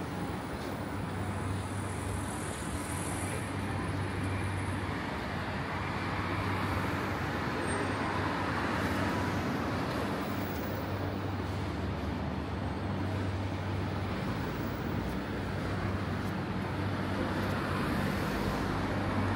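Steady street traffic noise with a low, constant hum underneath.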